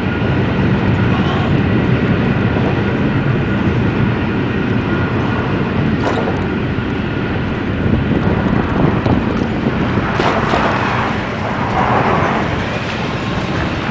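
Steady, loud rumbling street noise heard while travelling through town: wind on the microphone and traffic, with a slight swell near the end.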